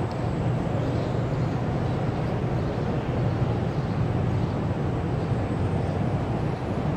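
Steady low background rumble with a hiss over it, even in level throughout, with no distinct events.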